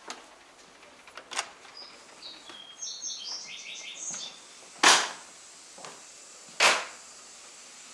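A sharp click, then a few short, high chirping squeaks, then two loud whooshing bursts about two seconds apart, the loudest sounds.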